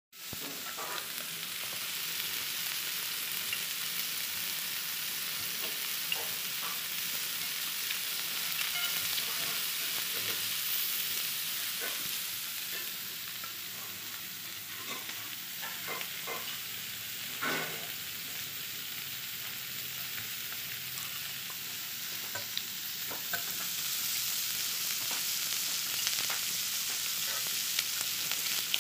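Sausage slices, meatballs, onion and enoki mushrooms sizzling steadily on a hot tabletop grill plate, with a few light clicks, the loudest about two-thirds through.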